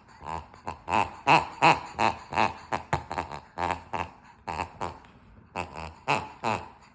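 A dog chewing a squeaky toy, setting off short, pitched squeaks over and over in quick runs of two or three a second, with brief pauses between runs.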